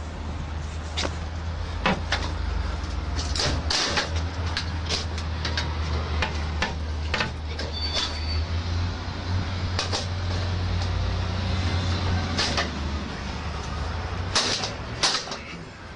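Steel pry bar levering and striking at the lock of an Xpanda steel expanding security gate: irregular metal knocks and clanks, several sharper ones near the middle and near the end. A steady low hum runs underneath.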